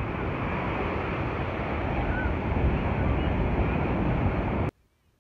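Ocean surf breaking, mixed with wind buffeting the microphone, a steady rush that cuts out suddenly near the end.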